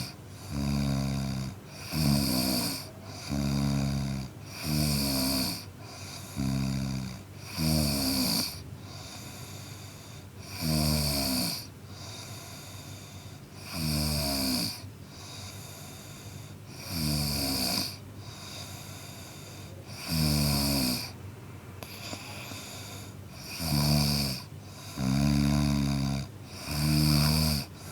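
A man snoring in a steady rhythm, each snore a rough, pitched rattle. They come about every second and a half at first, spread out to about every three seconds through the middle, and come closer together again near the end.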